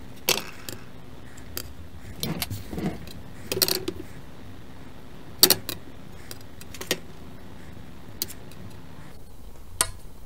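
Construction-paper strips rustling and sliding on a tabletop as they are pushed even, and a steel ruler clicking and clinking as it is handled and laid across them. The sounds come as separate short rustles and sharp clicks, the sharpest about five and a half seconds in.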